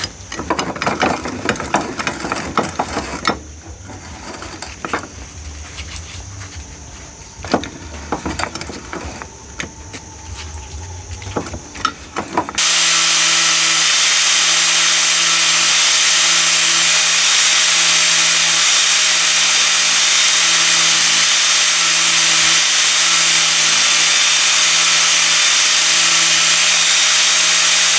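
Steel parts being handled, with irregular metal knocks and clanks for about the first twelve seconds. Then a Makita angle grinder starts suddenly and runs steadily, loud, its disc grinding down a steel nut.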